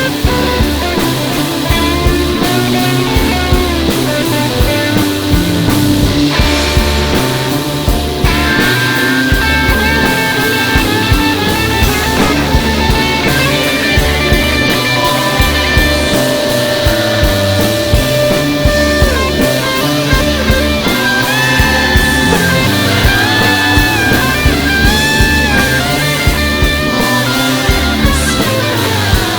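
Psychedelic rock track with an electric lead guitar holding long notes and bending them up and down, over bass and a steady drum beat.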